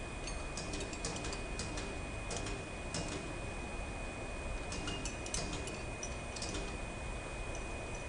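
Small metallic clicks and ticks in short irregular runs from hand tools working the bolts that hold a paper cup machine's curling mold support, over a steady faint high-pitched tone.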